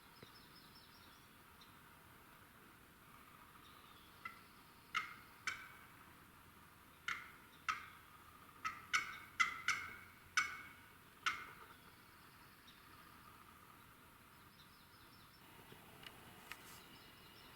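Turkey calling: about a dozen short, sharp notes, irregularly spaced over some seven seconds, with faint songbird chirps before and after.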